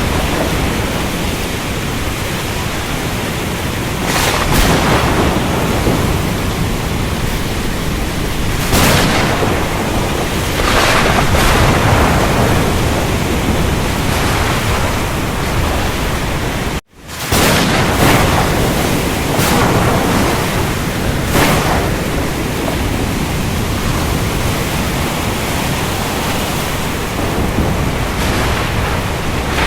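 Storm at sea: a steady wash of rain, wind and surf, with waves swelling and breaking every few seconds. The sound cuts out for an instant about 17 seconds in, then resumes.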